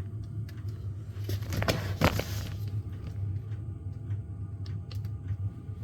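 Small handling clicks and a brief rustling scrape about a second and a half in, from hands working over an open laptop and the camera setup, over a steady low hum.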